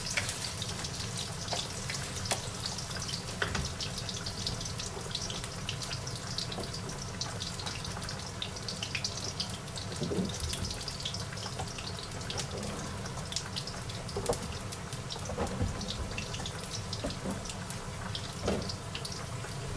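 Chopped garlic sizzling in hot olive oil in a wok, a steady crackle with many small pops.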